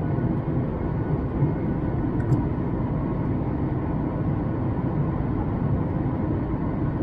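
Steady low rumble inside the cabin of a Boeing 737 MAX 8 in flight: engine drone and airflow noise from the CFM LEAP-1B engines, with a faint hum and a small click about two seconds in.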